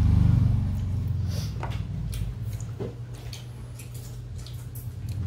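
A low rumbling hum, loudest at the start and easing off, with scattered light clicks and small wet smacks of eating at a dining table: spoons on bowls and chewing.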